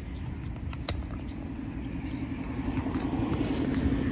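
Road traffic on the bridge overhead: a steady rumble that grows louder toward the end, with a few light clicks.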